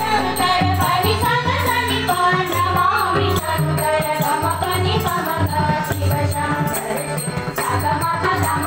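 Marathi devotional bhajan: a group of women singing in chorus to harmonium, with tabla beating out a steady rhythm and small hand cymbals jingling in time.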